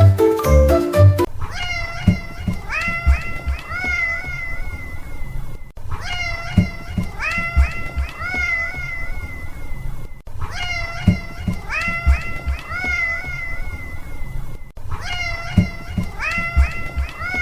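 A domestic cat's meows, the same short run of several meows repeated four times at even spacing, about every four and a half seconds, as an edited loop. A burst of music plays at the very start.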